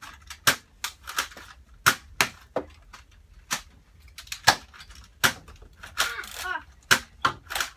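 Nerf blasters firing foam darts: about a dozen sharp, irregular clacks and pops.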